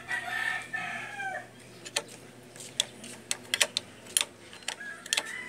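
A rooster crows during the first second and a half, a pitched call that slides downward, with a shorter call near the end. Throughout, sharp metallic clicks and taps come from an L-shaped hex key turning in the clamp bolt of the motorcycle's front brake master cylinder.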